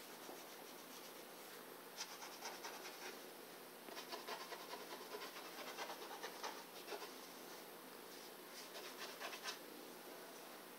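Cat grooming itself, its tongue rasping over its fur in faint, rapid scratchy strokes that come in three bursts, the longest in the middle.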